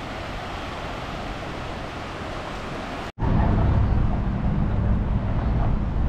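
Small waves washing onto a sandy beach, a steady hiss of surf. About three seconds in it cuts abruptly to street traffic, a louder low rumble of cars.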